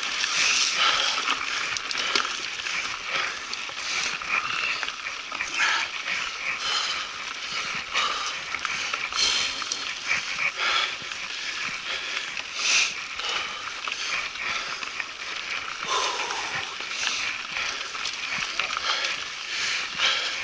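Mountain bike tyres rolling over a gravel road: a steady crunching hiss of loose stones, with frequent small clicks and rattles from the bike.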